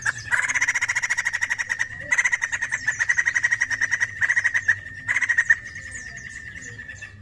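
White-crested laughingthrush giving bursts of rapid, rattling chatter, four runs of fast repeated notes; after the last run, a little past halfway, only a thin steady high note carries on.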